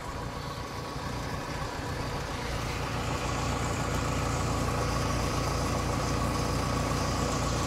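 Kubota DC70 combine harvester's engine running steadily, getting louder over the first three seconds and then holding even. About three seconds in, a steady higher hiss from the working machine joins it.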